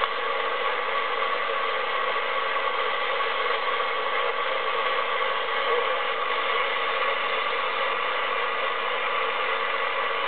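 Steady static hissing from a President Lincoln transceiver's speaker while it is tuned to 27.650 MHz on the 11-metre band with no station coming through, several faint steady whistles running through the hiss.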